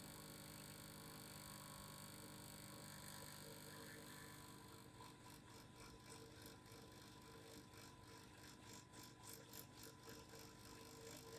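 Faint, steady vibrating hum from a vibrating device, joined about halfway through by a soft, even pulsing of roughly three to four beats a second.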